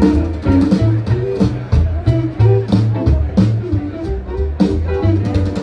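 Rock and roll band playing, with a bass line stepping quickly from note to note under guitar and a steady drum beat.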